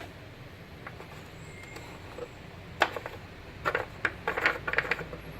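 Clicks and knocks of a Mini R56's plastic oil filler cap being handled and twisted: one sharp click about three seconds in, then a quick run of clicks near the end, over a steady low hum.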